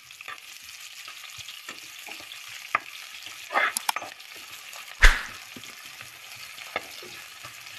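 Chopped garlic and onion sizzling in hot oil in a frying pan while a spatula stirs and scrapes them around, with a sharp knock of the spatula against the pan about five seconds in.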